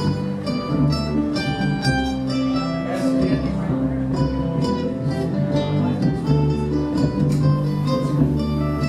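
Acoustic string band playing an instrumental passage: acoustic guitar and mandolin picking notes over upright bass.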